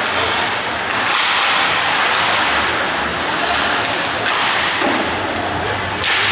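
Ice hockey game sound in a rink: a steady wash of skating and crowd noise with occasional thuds.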